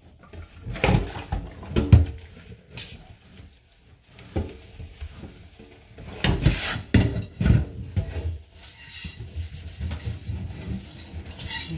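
Metal frying pan being washed in a stainless steel sink: irregular clanks and scraping as the pan is handled against the sink, with a cluster of louder knocks about a second in and again past the middle.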